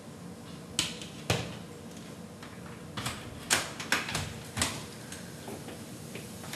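A door being handled: about seven irregular sharp knocks and clicks, the first two about a second in and a quick cluster a little later, over a steady low hum.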